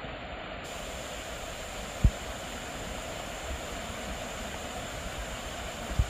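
Steady rush of water pouring over a low weir, with one brief low thump about two seconds in.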